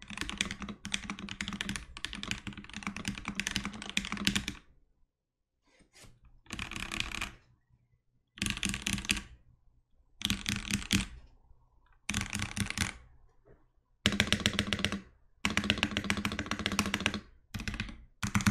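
Typing on a budget 65% hotswap mechanical keyboard as a sound test: a fast, continuous run of keystrokes for about four and a half seconds, then short bursts of rapid key presses roughly every two seconds, with pauses between them.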